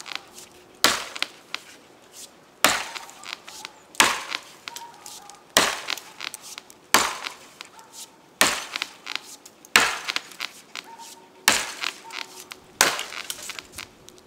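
Rinaldi "American" boy's axe chopping into a fallen beech limb: about nine sharp blows, one every second and a half, with lighter clicks between them.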